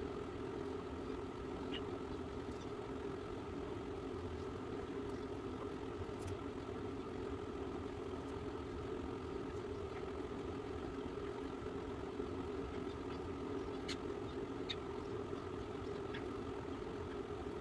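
Steady mechanical hum that stays level throughout, with a few faint ticks scattered through it.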